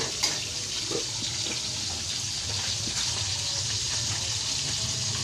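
Steady hissing rush from a wok of cooking oil on an LPG gas stove, with a few light knocks near the start and a sharper one at the very end.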